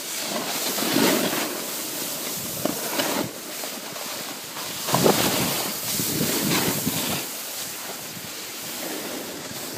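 Snowboard sliding over the snow: a steady scraping hiss that swells about a second in and again around five seconds.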